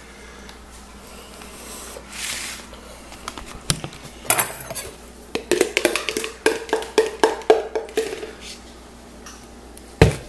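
Cutlery and dishes being handled on a kitchen counter: a quick run of clinks and taps, metal on crockery, several ringing briefly, then a single heavier knock near the end.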